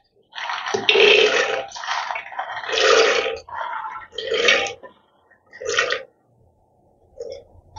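Soaked dried peas poured by hand from a steel bowl into an aluminium pressure cooker, rattling and sliding against the metal in a series of short wet bursts that thin out and stop after about six seconds.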